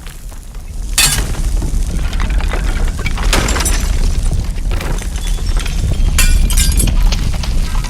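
Earthquake: a steady deep rumble with crashes of shattering glass and breaking objects, one about a second in, another after about three seconds, and a cluster of several between about six and seven seconds.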